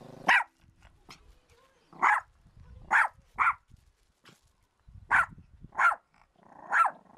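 Small long-haired Chihuahua-type dog barking in seven short, high yaps, roughly a second apart.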